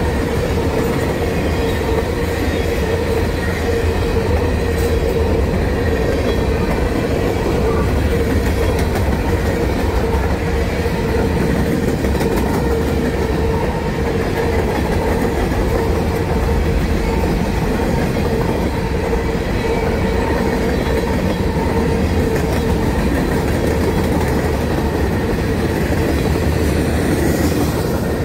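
CSX freight train cars, covered hoppers and tank cars, rolling past close by: a loud, steady rumble of steel wheels on rail with clickety-clack over the joints. A steady high tone runs through it.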